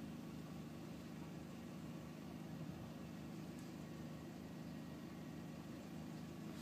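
Volkswagen New Beetle's engine idling, heard from inside the cabin as a steady low hum.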